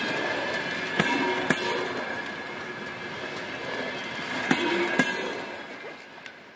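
Passenger coaches passing close by, with steady wheel and rail noise and pairs of sharp wheel clicks over the track, each pair about half a second apart. The last coach goes by and the sound fades as the train draws away near the end.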